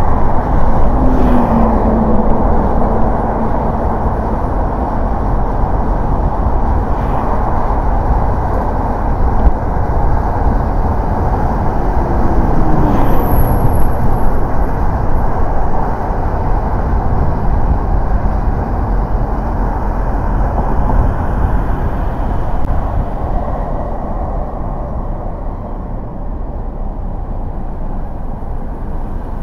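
A car driving on city streets: steady road and tyre noise with engine hum, a brief falling tone near the start and a rising one about halfway through, easing off somewhat about three-quarters of the way in.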